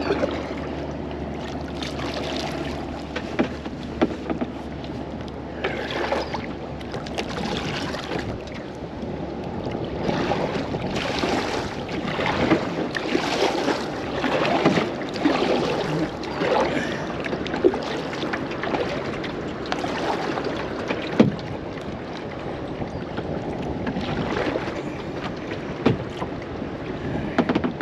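Double-bladed kayak paddle dipping and pulling through lake water, a swishing splash with each stroke every second or two, with a sharp knock about three-quarters of the way through.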